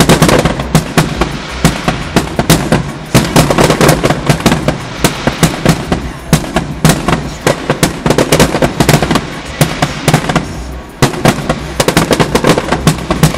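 Fireworks going off in a rapid, continuous string of bangs and crackles, several a second, easing briefly about eleven seconds in before picking up again.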